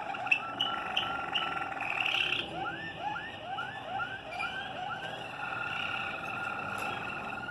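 Malinois Waterslager canary song. Short chipped notes give way to a run of rising, water-like notes repeated about three times a second, then a long steady rolling note near the end.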